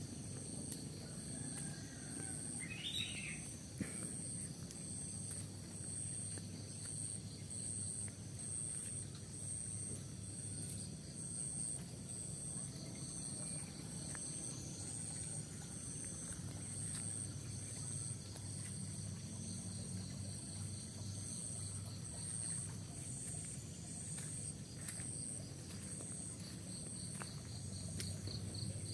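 Insects calling in a steady high-pitched chorus that pulses evenly. A short rising bird call comes about three seconds in, over a low background rumble.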